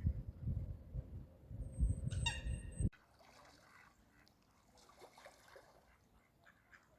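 Wind buffets the microphone in low gusts, and a single short bird call sounds a little over two seconds in. At about three seconds the sound cuts off abruptly, leaving faint, scattered bird calls at the lake.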